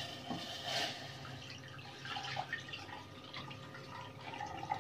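Milk pouring from a plastic bowl into a steel saucepan, a continuous splashing pour.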